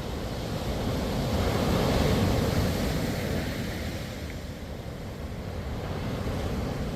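Sea waves breaking on a sandy beach: one wave swells to its loudest about two seconds in and washes away, then the surf builds again near the end. Wind buffets the microphone with a steady low rumble.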